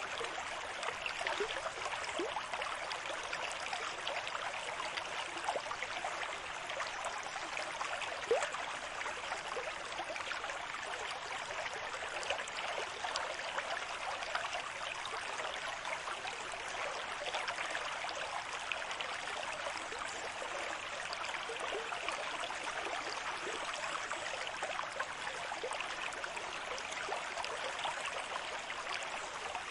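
Running water flowing at a steady level, with a dense babble of small bubbling gurgles through the rush, like a shallow stream or trickle.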